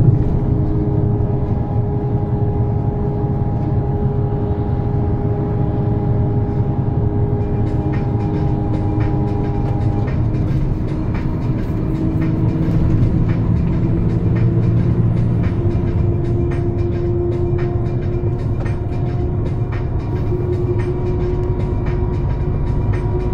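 Heavy truck's engine and drivetrain droning steadily, heard inside the cab at highway speed along with tyre and road noise. The pitch of the drone shifts about ten seconds in, and faint ticks and rattles come in from about eight seconds.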